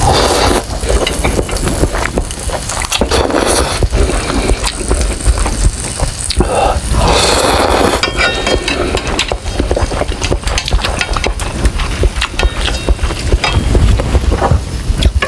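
Close-up loud slurping of instant noodles, several long slurps with wet chewing and smacking in between. A faint steady sizzle of pork slices on an electric grill pan sits underneath.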